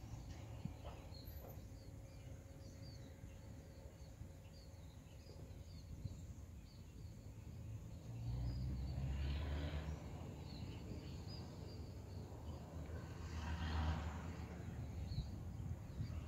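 Outdoor ambience of small birds chirping in many short, high calls. A low rushing noise swells up twice, about halfway through and again near the end.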